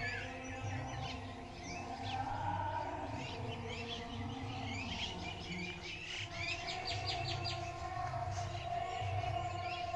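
Small birds chirping and calling outdoors, with a quick run of about six notes around the middle, over a low steady rumble.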